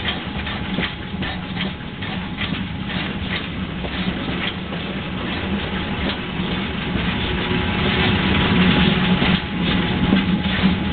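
A train hauled by the steam locomotive BR 64 518 running along the line, with a steady low hum and irregular clicks of wheels over the rails, growing louder in the second half.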